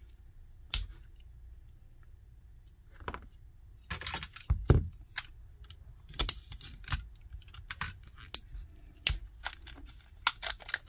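Plastic wrap of a router's lithium battery pack being cut and pried open with hand tools: irregular sharp clicks, scrapes and crackles of plastic, loudest about four to five seconds in.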